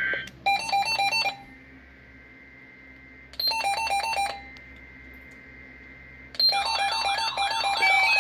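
Emergency Alert System SAME header on NOAA Weather Radio: bursts of harsh, rapidly switching digital data tones announcing a severe thunderstorm watch. There are three bursts. The first two last about a second each, a couple of seconds apart, and the third, near the end, keeps going with a warbling tone mixed in.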